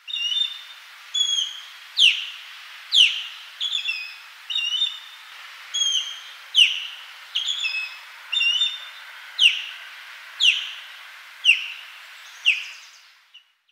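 Osprey calling: a series of high, sharp whistled notes about once a second, some sliding steeply down in pitch and others short doubled chirps, over a light hiss. The calls fade out near the end.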